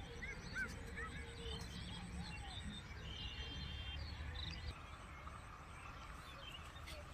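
Small birds chirping in short rising-and-falling calls over a steady low background rumble.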